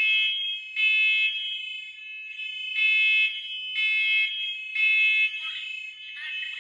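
Hardwired smoke alarm sounding its test signal: loud, high-pitched half-second beeps in groups of three, with a pause between the groups.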